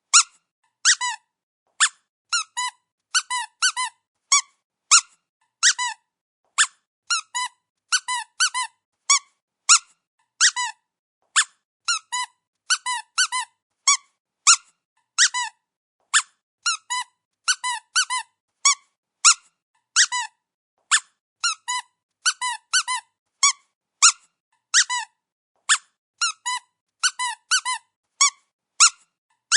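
Rubber squeaky dog toy squeezed over and over, giving short high squeaks singly and in quick runs of two to four, about two a second.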